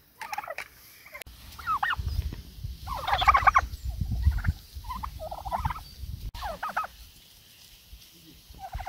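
Domestic turkey toms gobbling: several short, rapid gurgling calls in quick succession, the loudest about three seconds in. A low rumble runs under the loudest calls.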